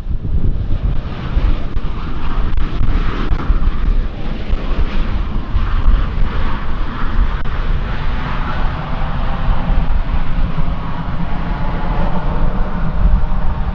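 Regional airliner's engines, loud and steady throughout, with a deep rumble underneath.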